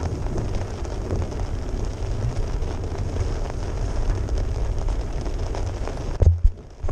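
Steady low rumble of a vehicle's engine and tyres churning slowly through a muddy, water-covered dirt road, heard from inside the cab. About six seconds in, the rumble drops away and a couple of loud thumps follow.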